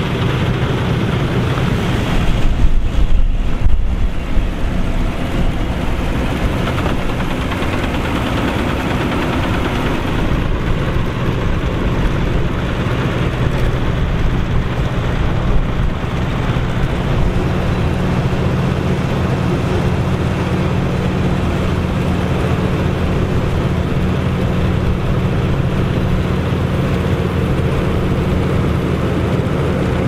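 Combine harvester running while threshing barley, with a tractor engine running alongside: a steady low engine drone over an even mechanical noise. A brief louder, rougher stretch comes a few seconds in.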